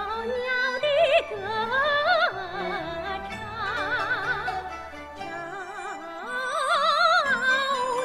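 A female soprano singing in an operatic style with wide vibrato, her line twice climbing to high held notes, accompanied by a Chinese traditional orchestra holding low sustained notes beneath.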